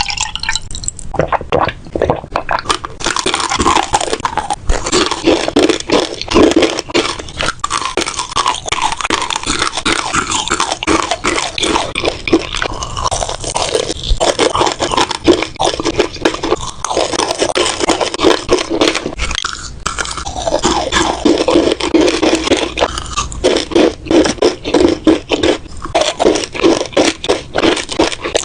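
Crunchy food being bitten and chewed, a dense run of crisp crackles that hardly pauses.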